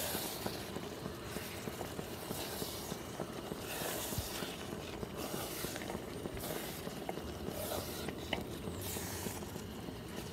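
Wooden spoon stirring and folding thick baked beans and pulled pork in a pot, with soft scrapes and swishes about once a second over a steady hiss.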